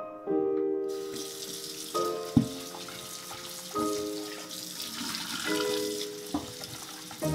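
Kitchen tap turned on about a second in, then water running steadily from a pull-down faucet into a stainless steel sink. A sharp knock sounds a little over a second later, and another near the end.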